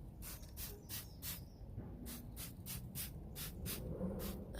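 Spray bottle of exhaust rust remover being pumped over and over, short hisses of spray about three a second.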